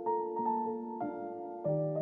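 Background piano music: gentle chords struck about once a second.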